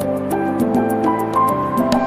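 Soft background instrumental music: sustained melodic notes changing every half second or so over a light, regular tick.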